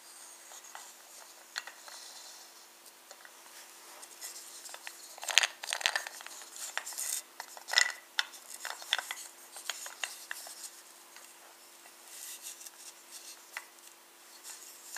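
Handling noise from a wooden pull-along toy train engine: irregular light clicks, knocks and rubbing as it is held and turned by hand, busiest around the middle.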